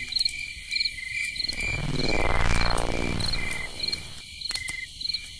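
Crickets chirping in a steady, even rhythm of short high chirps, with a swelling whoosh of ringing tones that rises and fades away about two to three seconds in.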